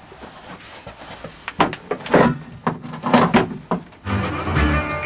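A run of rough, irregular scraping strokes from a palm sander worked against the fiberglass inside the hull around a through-hull hole. Background music with a steady beat comes in about four seconds in.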